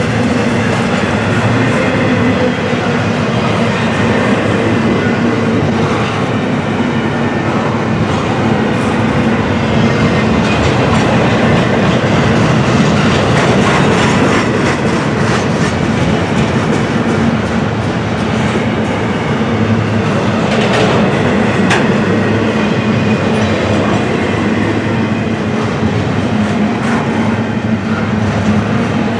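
Freight cars of a long auto rack and container train rolling past at steady speed: a continuous loud rumble of steel wheels on rail with a stream of clicks and clatter from the wheels and rail joints.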